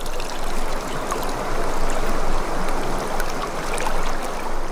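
Running water: a steady rush with small splashes and drips scattered through it.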